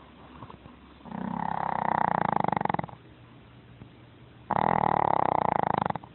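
An 8-lb Chihuahua snoring loudly: two long, rattling snores of about two seconds each, with quieter breathing between them.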